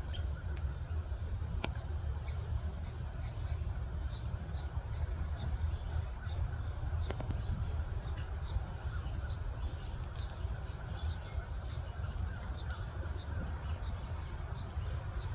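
Steady, high-pitched insect trill that runs on without a break, over a constant low rumble. A few sharp clicks sound about two seconds in and around seven and eight seconds in, with faint short high chirps here and there.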